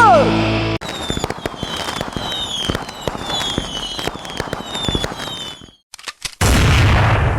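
The song's last note bends downward and stops. Then fireworks crackle and pop, with repeated falling whistles. After a short gap with a few cracks, a loud burst of noise fades away.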